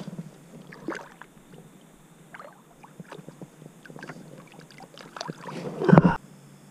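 Small knocks and rustles of an angler moving and handling gear in a plastic kayak, with one much louder thump about six seconds in.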